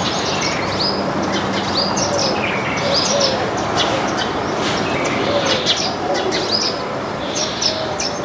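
A flock of small birds chirping and chattering, with many short high calls overlapping continuously.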